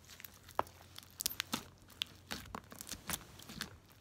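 Handmade clear slime, stiff from being nearly overactivated with borax, being squeezed and pulled apart by hand, giving a run of small, irregular sticky clicks and tearing snaps.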